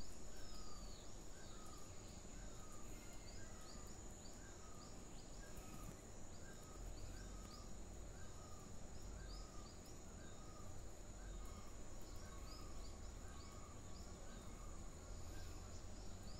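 Faint background ambience: a steady high-pitched insect drone, with short chirps from a small animal repeating about twice a second.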